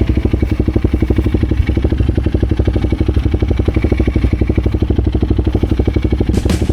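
Motorcycle engine running at steady low revs, its firing pulse even and unbroken, as the bike labours along a muddy trail.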